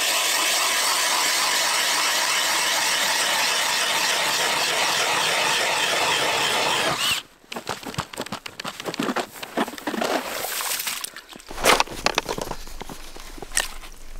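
Cordless drill driving a hand ice auger, boring through lake ice with a steady grinding whine. It stops suddenly about seven seconds in, followed by irregular scrapes and knocks.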